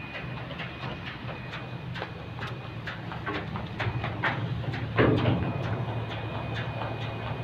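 Steady low drone of the ship's engine, with light clicks about two or three a second from a skipping rope and running feet on the steel deck, and a louder thump about five seconds in.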